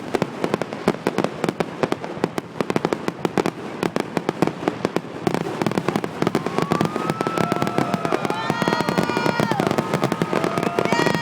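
Fireworks display: dense, rapid crackling and popping. Over the second half, several long, steady tones at different pitches join in and overlap.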